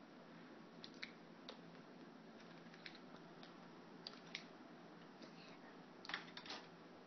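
Near silence: room tone with a few faint, short clicks and small handling noises, the loudest cluster near the end.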